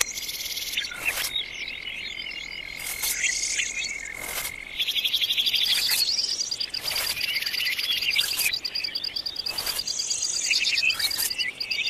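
Insects trilling: a steady high whine for the first few seconds, then a fast, evenly pulsing trill takes over. A few short scrapes of a small scoop in sand and gravel come through now and then.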